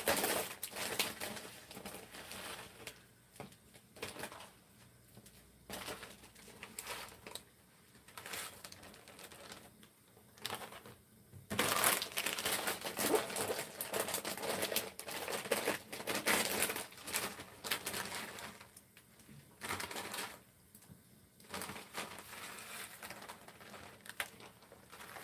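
Plastic wrapping of an instant noodle packet crinkling and rustling in the hands as it is opened and its sachets taken out, in irregular bursts that grow busier about halfway through.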